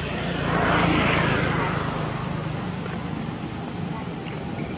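An engine passing by: a motor's rushing hum swells to its loudest about a second in and fades away over the next couple of seconds. Underneath, insects keep up a steady high drone.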